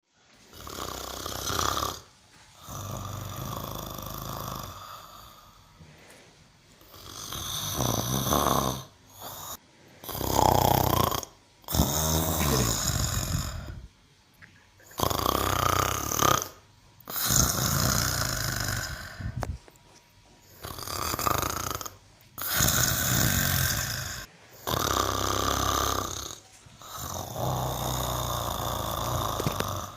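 A cow snoring: about a dozen long snores, each lasting one to three seconds, with short pauses between them.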